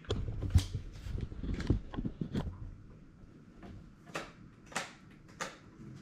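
Handling noise: an irregular series of light knocks and clicks, with a low rumble in the first couple of seconds.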